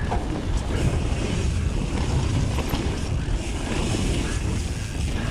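Mountain bike riding fast down a dirt trail: steady low rumble of tyres on hard-packed dirt with light knocks and rattles from the bike, under wind buffeting the action-camera microphone.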